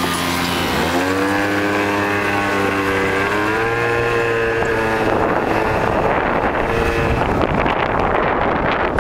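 Small motor scooter engine pulling away and speeding up, its pitch rising about a second in and again around three seconds, then holding steady. From about halfway on, wind rushing over the microphone grows and largely covers the engine.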